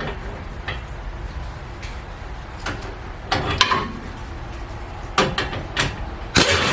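Metal clanking and scraping from tools and suspension parts being worked on, in three short bursts: one a little past the middle, two near the end.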